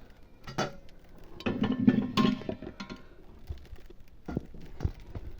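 Eating at a plate: scattered clinks, clicks and knocks of dishes and hands or utensils, busiest about a second and a half to two seconds in.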